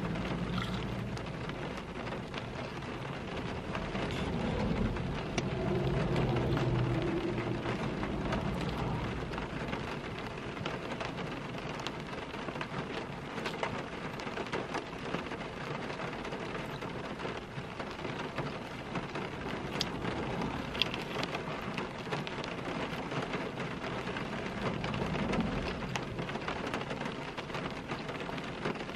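Rain pattering steadily on the roof and windows of a car, heard from inside the cabin. A low rumble swells between about four and nine seconds in and again near the end.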